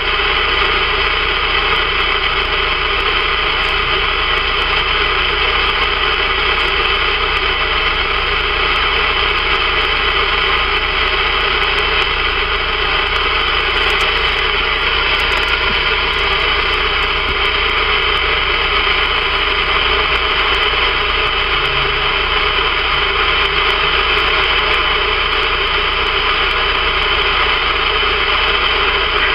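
CB radio receiver static on the 11-meter band in upper sideband mode: a steady, loud hiss cut off above the audio passband, with faint steady tones of distant carriers in it.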